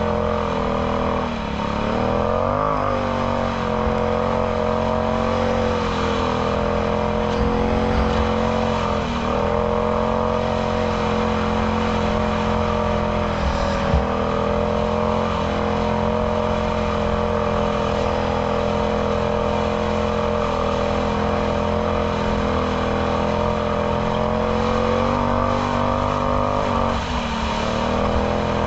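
Can-Am Outlander X MR 850 ATV's V-twin engine running at a steady pace through a Yoshimura slip-on exhaust. Its engine speed dips briefly and picks back up three times.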